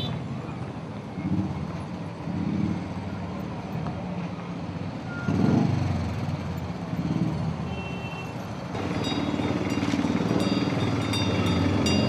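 Many motorcycle engines running at low speed in a slow street procession, with a couple of brief high beeps about five and eight seconds in.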